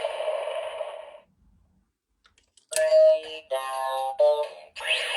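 Kamen Rider Nadeshiko DX driver toy belt playing its electronic sound effects: a whooshing effect that stops about a second in, a couple of faint clicks, then a run of chiming electronic tones and a rising whoosh near the end.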